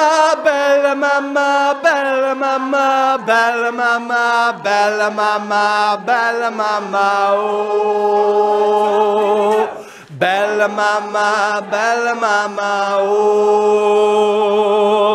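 Community choir singing unaccompanied, holding long notes that step from pitch to pitch, with a short break about ten seconds in.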